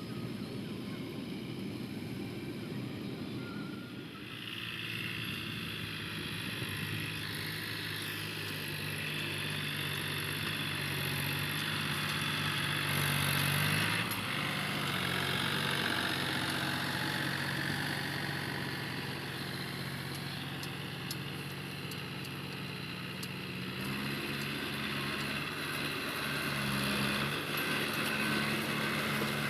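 Diesel engine of heavy farm machinery, a tractor or combine harvester, running steadily, its note shifting a little about a quarter of the way in and again near the end.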